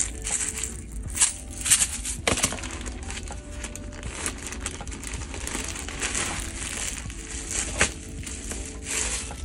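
Plastic packaging crinkling and rustling as a frosted plastic zip bag is opened and a knitted sweater vest is pulled out of it, with a few sharp plastic clicks in the first couple of seconds.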